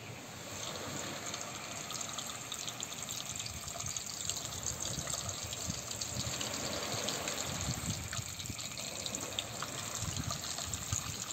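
Hot oil sizzling and crackling in a non-stick frying pan as yellow marinated pieces are laid in to deep-fry one after another.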